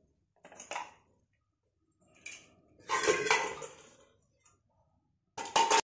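Steel kitchen utensils handled and set down on a hard floor: a few separate clinks and clatters, the loudest about three seconds in, and a sharp ringing metal clank near the end.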